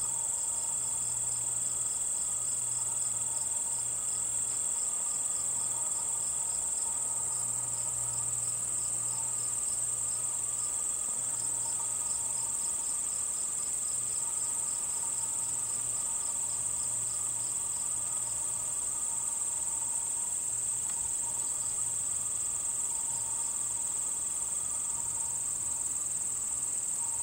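Insect chorus: a steady, high-pitched trill. A second insect chirps about four times a second through most of it and fades out near the end.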